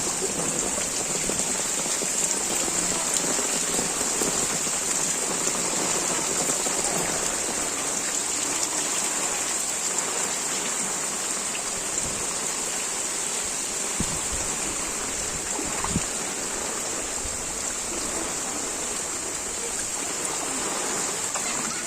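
Steady hiss of cyclone rain and running floodwater, with a few faint knocks in the second half.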